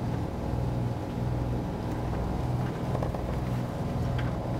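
A boat's engine droning steadily, heard inside the cabin, with a couple of faint clicks.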